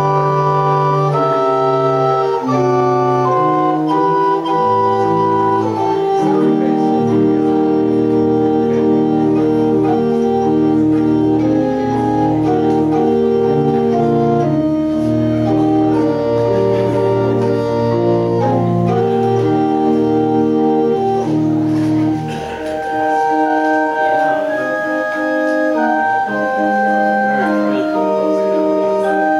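Organ playing slow music in long, held chords. The deepest bass notes drop out about three-quarters of the way through, leaving the upper voices.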